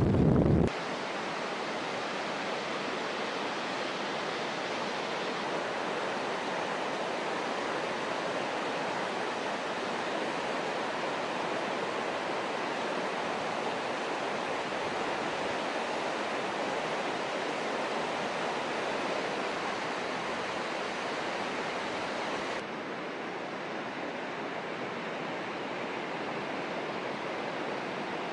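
Steady rushing of a glacial meltwater flood, turbulent muddy water running fast. A low rumble cuts off within the first second. About two-thirds of the way through, the rush changes abruptly to a slightly quieter, duller sound.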